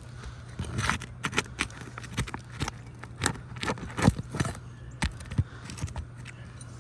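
Irregular clicks and short scrapes of a tool working under roof shingles, prying a sealed shingle loose to get at its nails.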